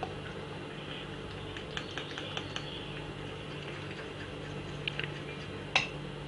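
Metal spoon clicking against a glass bowl while stirring a flour-and-water paste. A run of light clicks comes about two seconds in, a few more near five seconds, and a sharper tap near the end.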